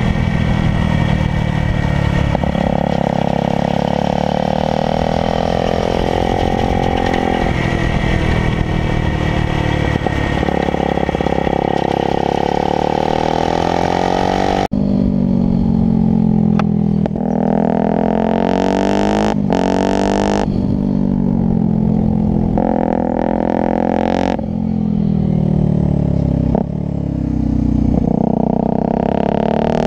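Motorcycle engine revving up and down in repeated rising and falling sweeps as it is ridden hard. The sound changes abruptly about halfway through. In the second half, bursts of hiss come and go over the engine.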